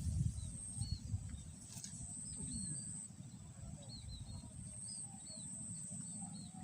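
Small birds chirping in short, repeated calls, over a steady high-pitched whine that cuts in and out and a low rumble of wind or handling noise.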